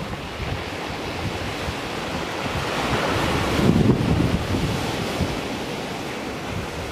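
Sea waves breaking and washing up over a shingle beach, the surf swelling to its loudest about four seconds in and then easing as the wash draws back. Wind buffets the microphone.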